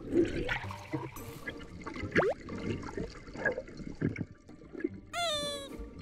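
Sea water sloshing and gurgling around snorkelers, with irregular bubbly splashes. A short tone sweeps sharply upward about two seconds in, and a short tone with a falling pitch comes near the end.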